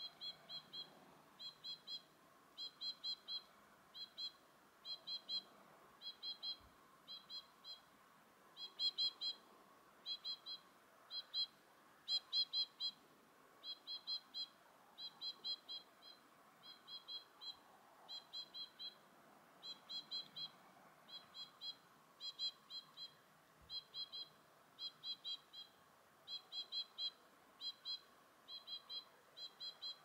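A small songbird calling over and over: short, high chirps in quick groups of two to four, the groups following one another steadily, about one a second.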